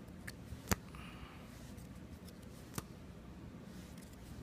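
Trading cards being handled: a few light clicks and a faint rustle as the cards are sorted, over a steady low hum.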